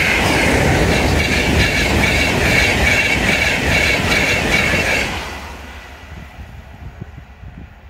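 InterCity 225 train, a Class 91 electric locomotive with Mark 4 coaches, passing at speed with a loud rush and a rhythmic clatter of wheels on the rails. About five seconds in the sound drops sharply and fades as the train draws away.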